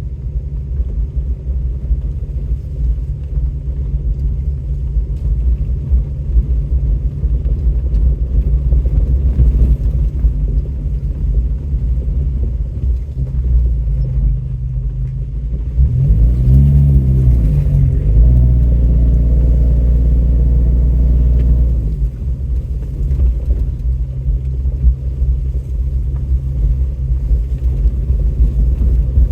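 Truck engine running under a steady low rumble while driving off-road. About halfway through, the revs climb and hold louder for several seconds, then drop back to a lower steady run.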